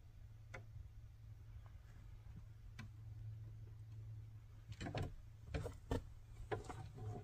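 Quiet van interior with a steady low hum, a few faint clicks, then a cluster of small knocks and clicks about five to seven seconds in.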